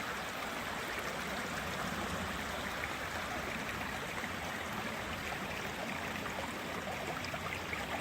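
Steady rush of running water from a stream, a constant even noise.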